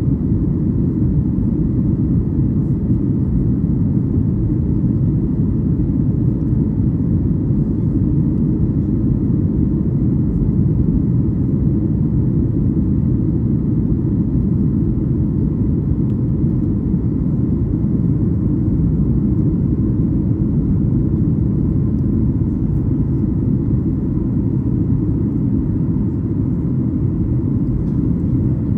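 Steady low rumble of cabin noise inside a Boeing 737-8200 in flight, from its CFM LEAP-1B engines and the airflow, with a faint steady hum over it.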